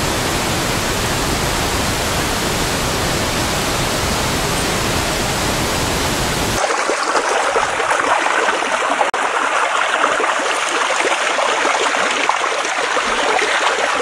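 River water rushing over the steps of a weir, a steady, full rush from deep to high. About six and a half seconds in it cuts abruptly to the lighter, splashier churning of rapids, with the deep rumble gone.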